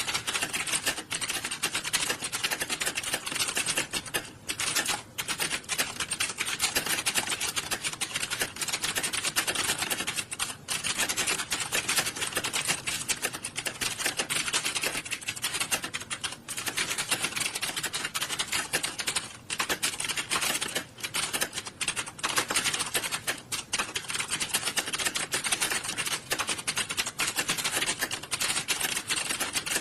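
Many computer keyboards being typed on at once during a typing test: a dense, continuous clatter of overlapping keystrokes, with a few brief dips.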